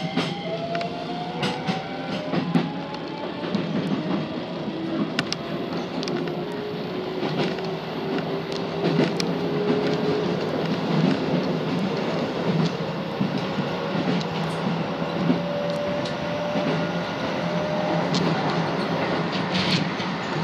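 Keisei electric train's traction motors whining as it accelerates, with several tones climbing slowly in pitch. Wheels click irregularly over rail joints and points under a steady running rumble, heard from inside the train behind the front window.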